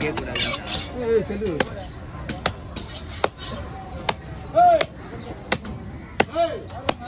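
A heavy cleaver chopping through a large grouper on a wooden chopping block: a string of sharp, irregular chops, roughly one every half second to second.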